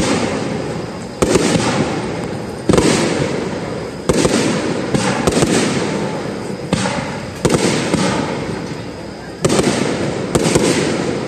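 Aerial firework shells bursting at a fireworks display: about eight sharp booms a second or so apart, each fading into a rolling rumble with crackle.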